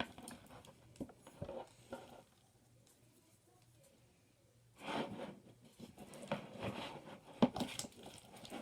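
A utensil stirring and scraping slime in a plastic container after activator has been added: irregular clicks and scrapes, a quiet stretch from about two to five seconds in, then busier scraping and clicking.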